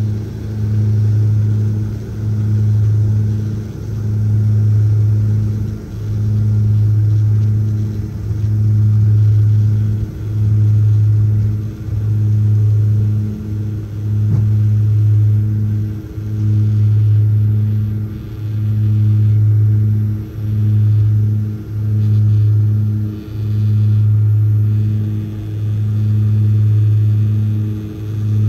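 Twin Garrett TPE331 turboprop engines and propellers of a Dornier 228, heard from inside the cabin at takeoff. They make a loud, steady low drone that swells and fades about every one and a half to two seconds.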